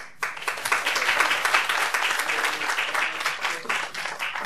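Audience applauding in a lecture hall, starting just after the beginning and thinning out near the end.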